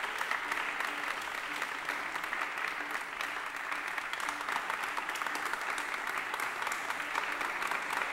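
Large audience applauding steadily: dense, even clapping from many hands.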